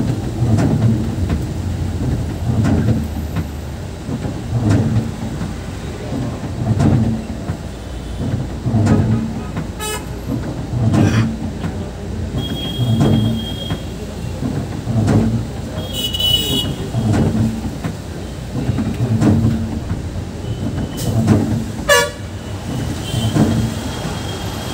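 Bus running along the road, with a low rhythmic thump about once a second throughout. Short horn toots sound near the middle and again later, one of them louder and brighter about two-thirds of the way through.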